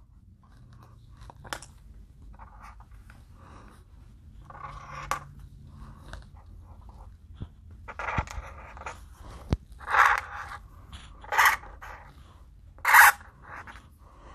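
Black permanent marker scratching on paper on a clipboard as sprinkles are drawn: a series of short strokes, faint at first, then louder ones about every second or two in the second half, with a couple of light taps.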